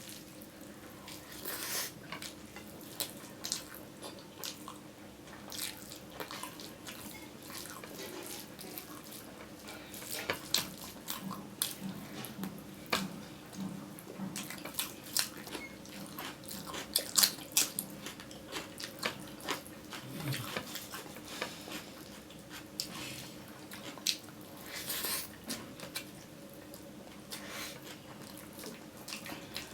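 Close-up eating sounds: wet chewing and lip smacks, with many sharp irregular clicks over a faint steady hum.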